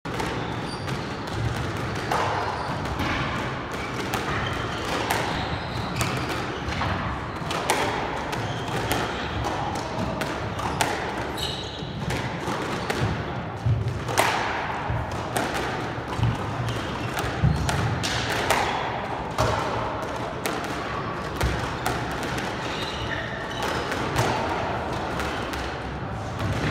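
Squash ball struck by racquets and hitting the court walls and floor in a rally: irregular sharp knocks that echo around the enclosed court, with short squeaks from court shoes on the wooden floor.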